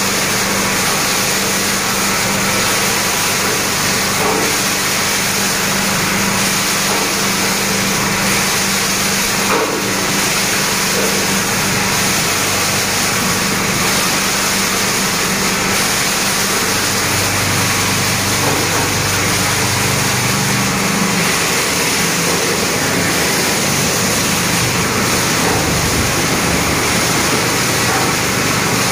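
LD plastic washing plant running: the electric motor and belt-driven agitator of the washing tank churning scrap plastic in water, a loud steady machine noise with a low hum.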